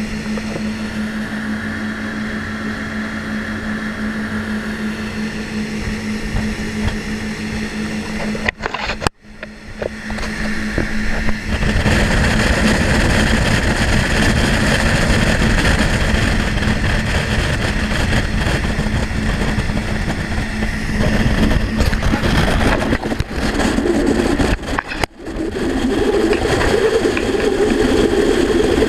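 Sea Hunter boat's outboard engine running, steady at first, then growing much louder from about eleven seconds as the boat runs at high speed, around 60 mph, with a heavy rush of wind and water over it. The sound drops out briefly near nine seconds and dips twice near the end.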